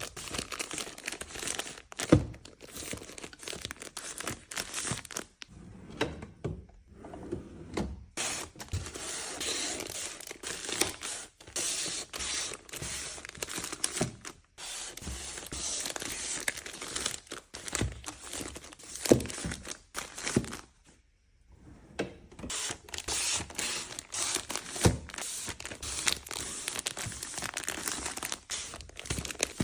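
Packaging crinkling and rustling as items are unwrapped and handled, with a few sharp knocks of objects being set down, the loudest about 2, 19 and 25 seconds in.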